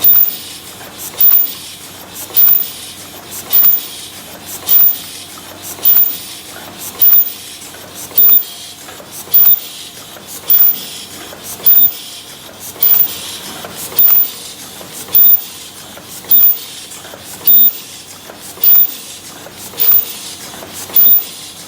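Paper cup forming machine running steadily while making 22 oz cups, with a constant mechanical clatter. A short, loud burst of noise comes once per cycle, a little more often than once a second.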